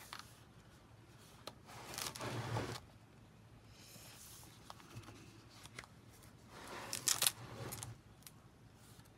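Pages of a large book being turned by hand: two papery swishes, about two seconds in and again about seven seconds in, with a few small ticks of paper between.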